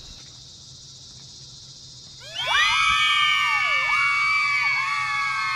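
A low steady hiss, then about two seconds in a crowd breaks into loud cheering and screaming, many high voices shouting at once.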